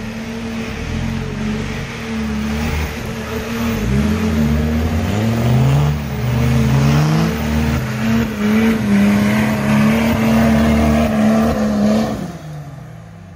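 BMW M57 3.0 straight-six turbodiesel in a Nissan Patrol Y61 under hard throttle while driving through deep mud, the engine note rising and falling as it revs. The loud engine sound drops away about 12 seconds in.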